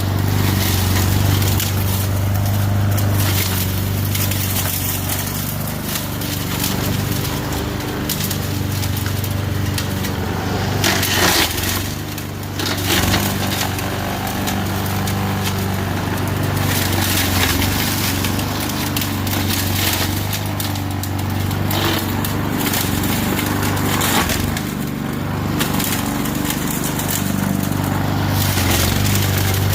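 Lawn mower engine running steadily in mulch mode while it chews up cut brush and branches, with irregular wood cracking and splintering over the drone. A louder crackle comes about eleven seconds in.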